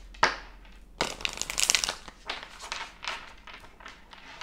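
A deck of tarot cards handled and shuffled by hand: a sharp card snap just after the start, then a quick riffle of fast clicking card edges about a second in, followed by softer scattered card slides.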